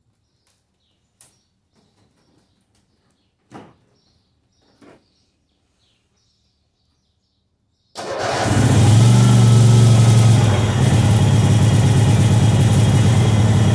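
A few faint clicks, then about eight seconds in the Troy-Bilt 13039 garden tractor's original engine starts from cold, catching at once, and runs steadily with a strong low hum, its speed rising briefly before settling.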